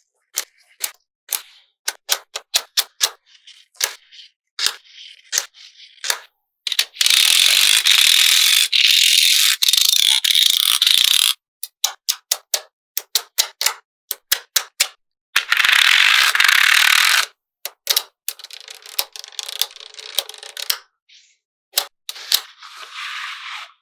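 Small magnetic balls snapping together in sharp single clicks, with two longer spells of many balls rattling and clattering together, about seven seconds in and again about fifteen seconds in, and softer rattling near the end.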